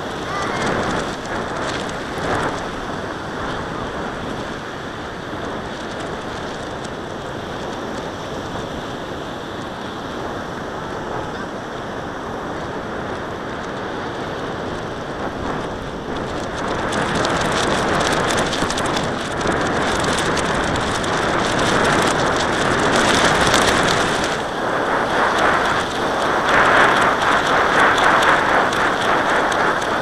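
Wind buffeting the microphone of a kite-borne camera: a steady crackling rush that gets louder a little past halfway.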